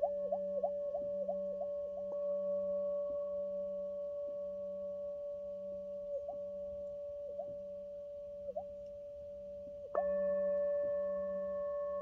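Metal singing bowl ringing, held up to the mouth so its tone wobbles in pitch about three times a second. The ringing fades and the wobbles thin out, then the bowl is struck again about ten seconds in and rings out loudly with the warble returning.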